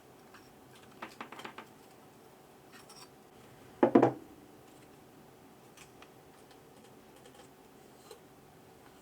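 Hand-work noises from tools and small parts on a Xiaomi M365 scooter dashboard: faint scratches and ticks, a quick run of small scrapes about a second in, and one brief louder knock with a short rattle about four seconds in.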